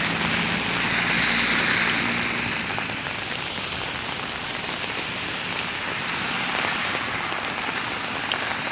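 Heavy rain pouring down on pavement, a dense steady hiss. A faint low hum under it fades out about two and a half seconds in, and the rain sounds a little softer after that.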